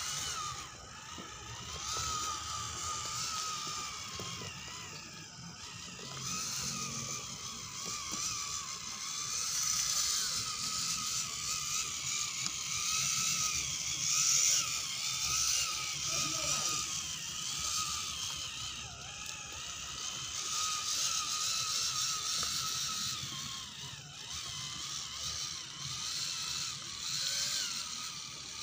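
Scale RC crawler's electric motor and gearbox whining, the pitch wavering up and down with the throttle as it crawls over sticks and dry leaves.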